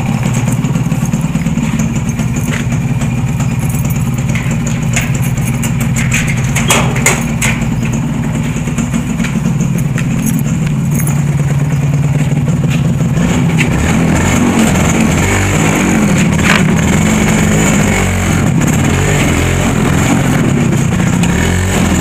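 A vehicle engine running steadily, its pitch shifting about two-thirds of the way through.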